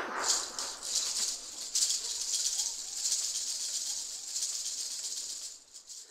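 A dry, high rattling hiss made of many fine rapid pulses, with a few faint short chirps in the middle; it fades out near the end.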